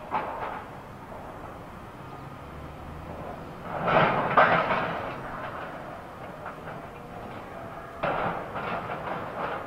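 Container handling at a port terminal: three spells of heavy clanks and bangs, one at the start, one about four seconds in and the loudest about eight seconds in, over a steady low machinery noise.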